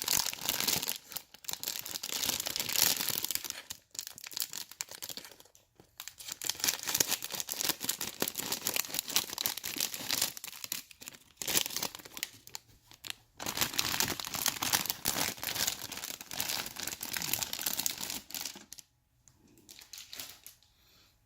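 A plastic bag of model-kit parts being opened and crinkled as the runners inside are handled, in long crackling stretches with short pauses; it goes much quieter near the end.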